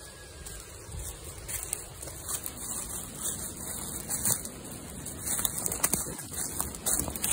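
Footsteps crunching and rustling through leaf litter and twigs, at an uneven walking pace.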